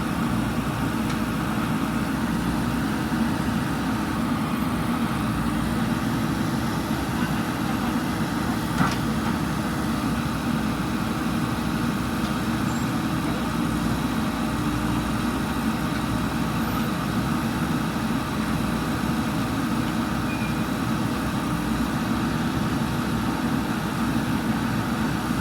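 JCB backhoe loader's diesel engine running steadily, with one short sharp knock about nine seconds in.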